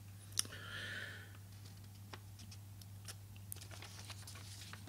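Sheets of paper being handled and laid on a desk, giving faint rustles and a string of small clicks, over a steady low mains hum.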